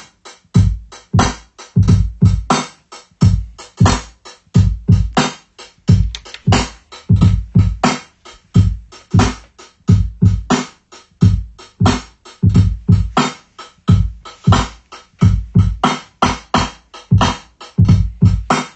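Boom-bap drum beat from an Akai MPC 2500 sampler: a steady pattern of heavy kicks and crisp snare and hi-hat hits, with no melody over it. It cuts off suddenly at the end.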